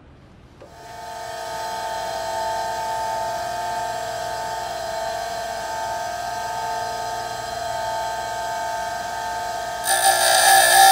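Bench grinder running with a steady whine. Just under ten seconds in, a steel twist drill's point is pressed against the wheel and a loud, high grinding hiss joins in as the web at the drill point is thinned.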